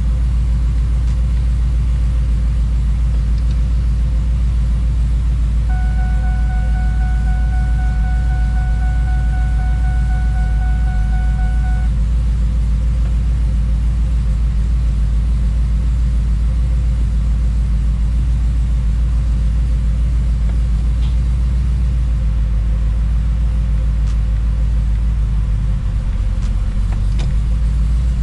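Ford SVT F-150 Lightning's supercharged V8 idling with a steady low rumble while the truck sits in gear, being run through each gear so fluid fills the newly installed 4R100 valve body. A steady high tone sounds for about six seconds partway through, and the idle note shifts slightly near the end.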